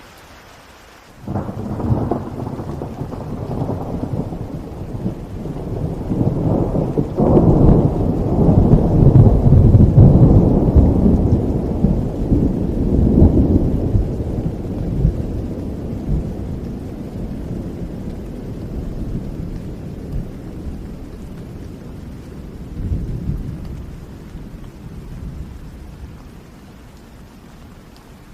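Thunder rolling over steady rain. A long rumble breaks in suddenly about a second in, builds to its loudest about a third of the way through, then slowly dies away, with a smaller swell of rumbling near the end.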